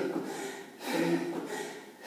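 A woman breathing hard from exertion, with a short voiced, grunting exhale about once a second in time with her push-up reps.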